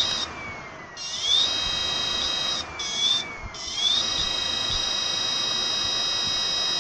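Washing machine motor rewired as a 36-pole e-bike motor, spinning up on a 72-volt e-bike controller under throttle: a high-pitched electric whine that rises as the speed builds. It dips and climbs again twice about three seconds in, then holds steady at speed.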